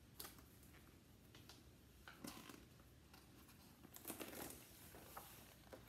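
Faint rustling and soft crinkles of a large paper page in an oversized picture book being handled and turned, loudest about four seconds in.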